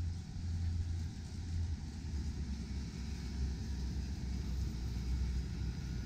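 Steady low rumble of outdoor city ambience, with no distinct events standing out.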